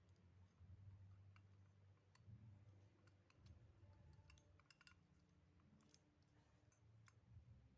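Faint, scattered light clicks from a small all-metal revolver being handled, over a low hum.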